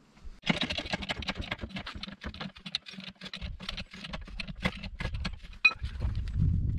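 Rapid, irregular clicking and tapping: a dense run of light clicks over a low steady hum, with heavier low thumps near the end.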